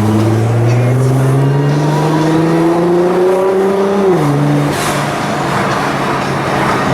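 Nissan GT-R's twin-turbo V6 under acceleration, its note climbing steadily for about four seconds before dropping at an upshift. A short hiss follows, and the engine then runs on with a rougher, noisier sound.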